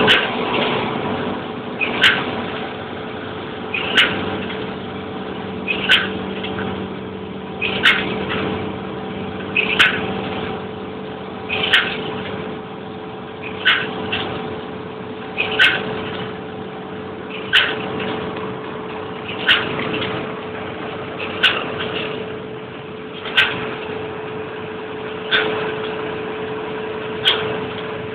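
Don-1500B combine harvester running steadily, a continuous machine drone heard from the cab, with a sharp click about every two seconds.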